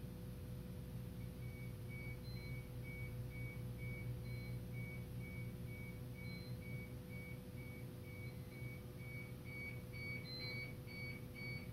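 Short high electronic beeps repeating evenly about twice a second, starting about a second in, over a steady low electrical hum.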